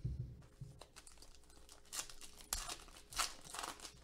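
Foil trading-card pack wrappers crinkling and tearing as they are opened by hand, in crackly bursts about two and three seconds in with a sharp snap between them. Dull low bumps from handling come first.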